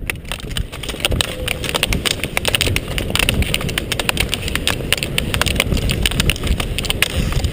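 Several skiers on roller skis double-poling away from a start: a dense, irregular clatter of ski-pole tips striking the asphalt over the noise of the wheels rolling, growing louder about a second in as they pick up speed.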